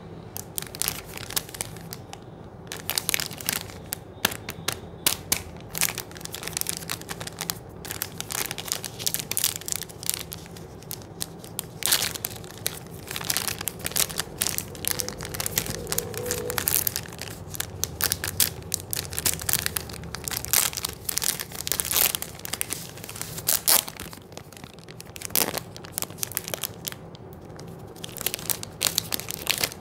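Plastic ice cream bar wrapper crinkling and crackling in the hands as it is squeezed and turned over, then torn open near the end.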